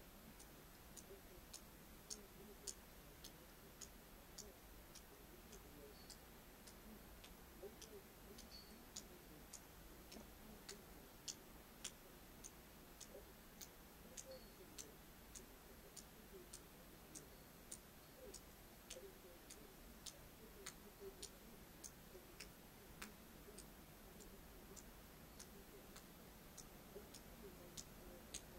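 Near silence with faint, irregular light ticks, about two a second, over a low steady hiss.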